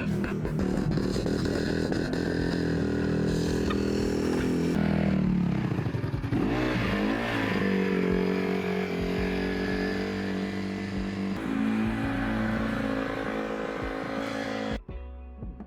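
An engine running, its pitch dropping and then climbing again partway through, as if revved, before cutting off abruptly near the end.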